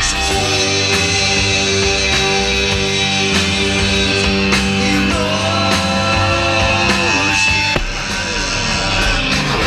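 Live rock band playing, with electric guitar to the fore: held notes and a pitch bend about halfway through.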